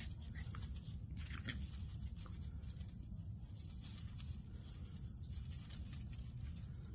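Puppies at play: a couple of faint puppy yips in the first second and a half, over a steady low rumble.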